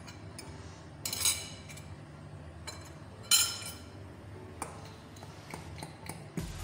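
Metal spoon knocking against glass: two sharp, ringing clinks about two seconds apart as the last of the egg-and-butter mixture is scraped from a glass jug into a glass mixing bowl, followed by faint small taps.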